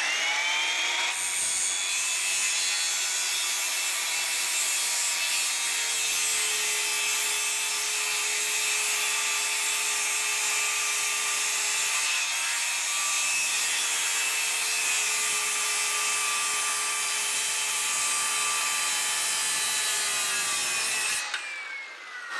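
Circular saw starting up with a rising whine, then running steadily as it is drawn backwards along a scribe line, cutting a bevel through a laminate-faced particleboard panel. Near the end the motor is switched off and the blade winds down with a falling whine.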